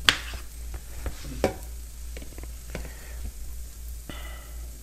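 A knife cutting Brussels sprouts in half on a cutting board: several sharp knocks of the blade against the board, the first the loudest.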